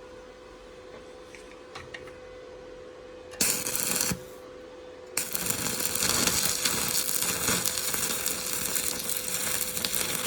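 Arc welder striking an arc on rebar: a short burst of crackling about three and a half seconds in, broken off, then the arc is struck again about five seconds in and burns steadily with a dense crackle.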